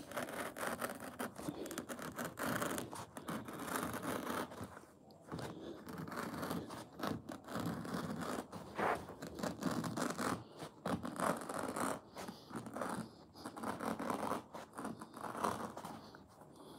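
A knife cutting a carpet's edge along a skirting board: continuous scratchy scraping of the blade through the pile and backing, with a couple of brief pauses, as the cut-off strip is pulled away.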